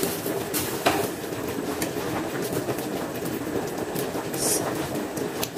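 Chicken in a cream curry sauce simmering in a nonstick wok, a steady bubbling and sputtering with small irregular pops. A brief hiss comes about four and a half seconds in.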